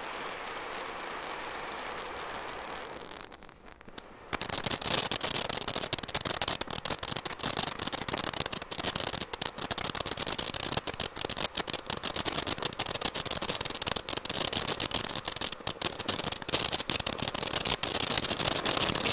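World Class Hive Mind fountain firework: a steady spraying hiss from the white glitter fountain for about three seconds, fading out. Then, about four seconds in, dense rapid crackling takes over and keeps going.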